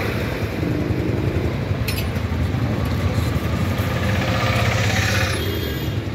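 Busy street traffic: a steady, close engine rumble from motor vehicles, with a short click about two seconds in.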